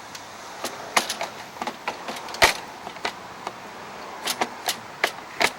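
Irregular sharp clicks and metallic clinks of hand tools and small mower parts being handled, about a dozen, the loudest about two and a half seconds in.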